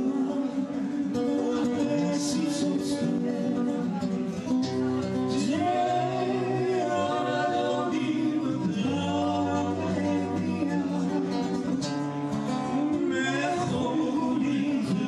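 A live song: a woman and a man singing together into microphones, accompanied by a strummed and plucked acoustic guitar.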